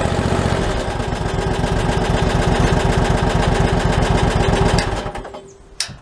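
Skid steer engine idling with an even, rhythmic firing, heard from inside the operator's cab. It is shut off about five seconds in and dies away quickly, followed by a single sharp click just before the end.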